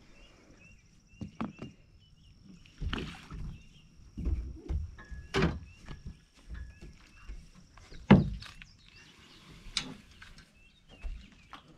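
Irregular knocks and thumps of people and paddles against a small sailboat's hull as they get in and set off, the loudest about eight seconds in.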